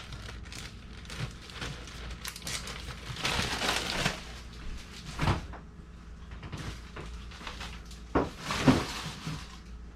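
Kitchen handling sounds while preparing food: rustling and light clattering, with sharp knocks about five seconds in and again near the end.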